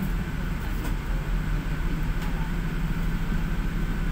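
Steady low rumble of a moving passenger vehicle, heard from inside its cabin, with a faint steady tone above it.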